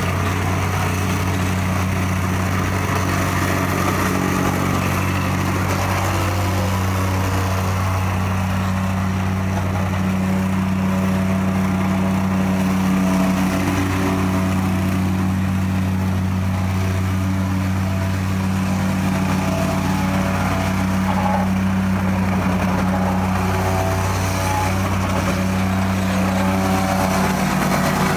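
Gas-powered vibratory plate compactor running steadily while it compacts a gravel base, its small engine and vibrating steel plate making a constant low hum.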